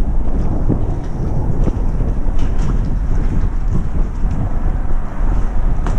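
Wind buffeting the microphone: a loud, wavering low rumble, with a few faint knocks in the first half.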